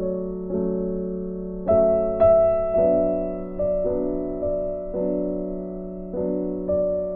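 Background piano music: gentle chords restruck about every half second, each fading before the next, with a brighter high note about two seconds in.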